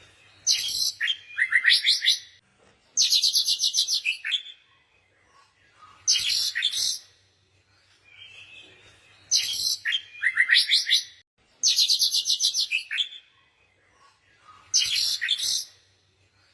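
Songbird singing: loud bouts of fast, evenly pulsed high trills, each about a second long and coming every few seconds, with soft twittering between them.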